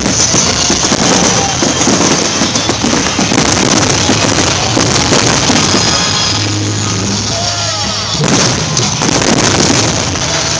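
Fireworks going off under loud music.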